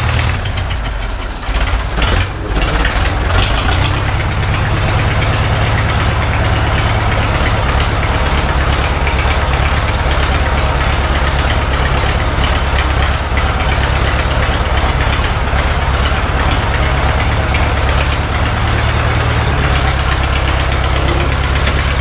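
Engine of an old farm vehicle running steadily, heard close. The sound dips briefly about a second in, and a few sharp knocks follow around two seconds in.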